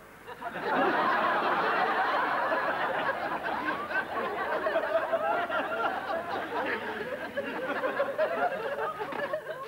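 Studio audience laughter, many voices at once, breaking out suddenly about half a second in and carrying on, easing off near the end.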